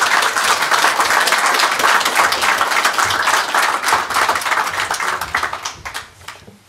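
Audience applauding, a dense clapping that thins out and fades away over the last second or two.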